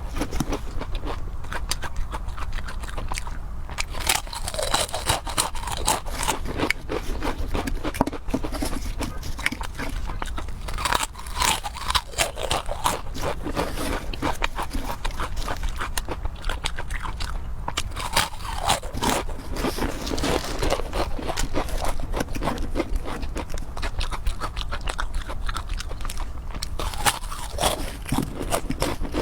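Close-miked eating sounds: a person biting and chewing crunchy food in quick, irregular crunches that go on throughout.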